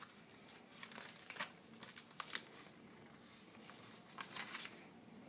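Faint rustling and crinkling of paper, a book's page being handled and turned, in a few short bursts.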